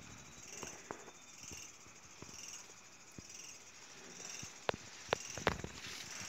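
Crickets chirping in a steady, evenly pulsing rhythm, with a few sharp clicks and crackles as honeycomb is broken and pulled from a wild bee nest by hand, the loudest clicks coming close together near the end.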